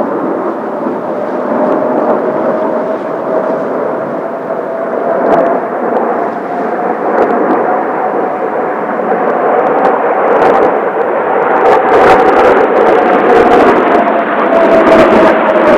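Jet noise from Blue Impulse's Kawasaki T-4 trainers flying over: a dense rushing roar with a steady whine that rises a little, then falls away near the end. In the second half, strong wind gusts knock and rumble on the microphone.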